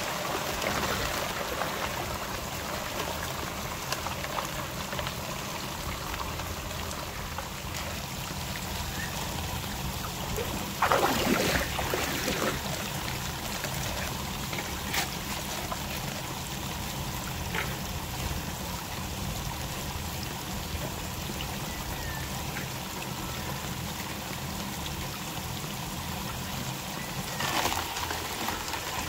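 Water running and trickling steadily through a powered Tidy Kitty high banker used for gold clean-up, over a steady low hum. A louder rush of pouring water comes about eleven seconds in, and a smaller one near the end.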